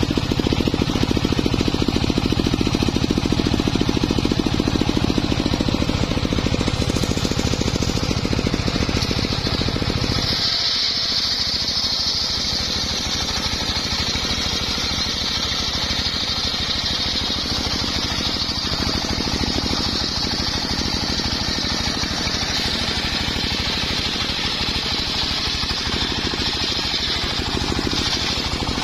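Homemade engine-driven circular sawmill running, its large blade ripping lengthwise through a big acacia log. About ten seconds in, the engine's low pulsing thins out and a steady high whine of the blade in the cut takes over.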